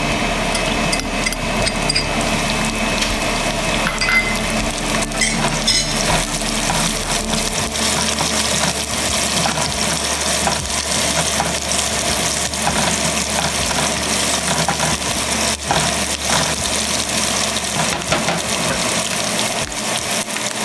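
Chopped serrano peppers, garlic and cumin seeds sizzling steadily in hot oil in a small frying pan as they are sautéed and stirred with a silicone spatula, with a few light clinks about four to six seconds in.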